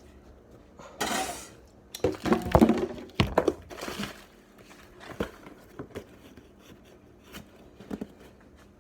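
Kitchen handling sounds: a brief rustle about a second in, then a burst of clattering dishes and utensils from about two to four seconds in, followed by a few light knocks.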